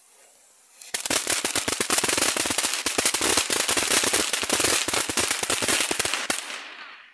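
Small youth-category ground firework going off. About a second in it breaks into a dense run of rapid crackling snaps that lasts about five seconds, then dies away just before the end.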